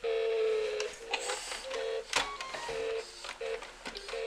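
Baby's electronic activity toy with a shifter beeping at one pitch: a held tone for about a second, then a run of short beeps, mixed with sharp plastic clicks and knocks as its shifter and buttons are worked.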